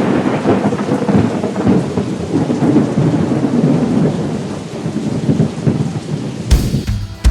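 Thunder: a long rolling rumble over a rain-like hiss, cutting off about six and a half seconds in.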